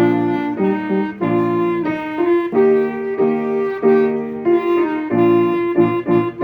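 Band music with clarinet: several wind instruments play chords together in short, detached notes that change about every half second.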